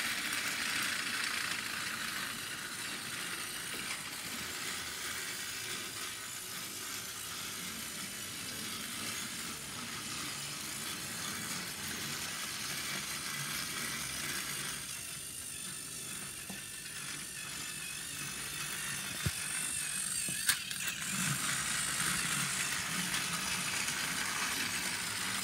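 Plarail Edward battery-powered toy train running on plastic track: the steady whir of its small geared motor with the wheels rattling over the rails. The sound dips for a couple of seconds past the middle, and a sharp click comes about three quarters of the way in.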